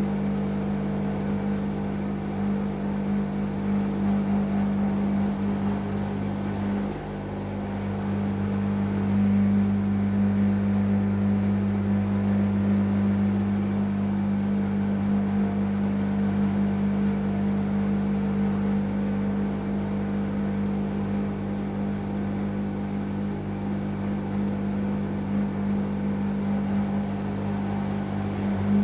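Drain pump of a Gorenje SensoCare W7723 washing machine running with a steady hum during the drain. This is the odd pump noise the owner calls a small, not serious, problem.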